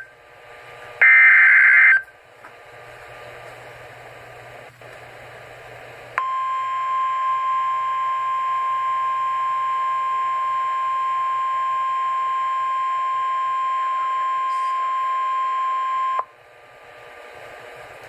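Emergency Alert System weather radio broadcast: a loud, warbling data burst about a second long, then a pause, then the steady single-pitch weather radio warning alarm tone. The tone holds for about ten seconds and cuts off sharply, signalling that a new severe thunderstorm warning follows.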